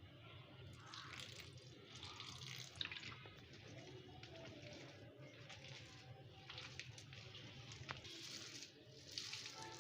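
Faint wet squelching of gram-flour batter and chopped onions being mixed by hand in a bowl, with a little water just added. Soft, uneven squishes come about once a second, with a few small clicks.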